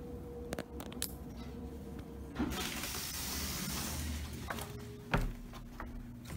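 Schindler Dynatron-MV service elevator arriving at the landing: a few clicks, then its stainless steel doors slide open with a steady noise lasting about two seconds. A loud thump comes just after five seconds.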